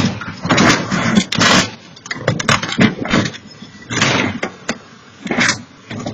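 An SUV crashing and rolling onto its side: a series of loud, irregular crunches and scrapes, heaviest in the first two seconds, then sporadic clatter. Heard through a home security camera's microphone.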